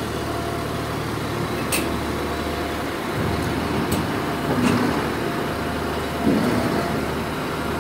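Heavy diesel engine of a Komatsu D85 bulldozer running steadily as it is driven onto a lowbed trailer, with a few light clicks.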